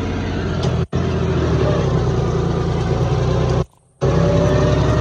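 John Deere 5050D tractor's diesel engine, its fuel injection pump modified, running steadily under load while pulling a disc harrow. The sound cuts out briefly twice.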